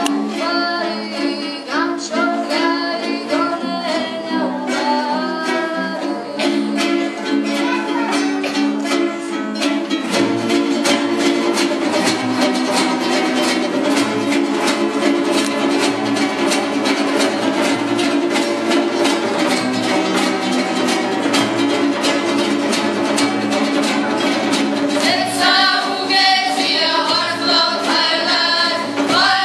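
Young ensemble singing a Georgian folk song together, accompanied by strummed acoustic guitars, smaller plucked lutes and hand drums. About ten seconds in the voices drop back for a denser, evenly pulsed strummed passage, and the singing comes back strongly near the end.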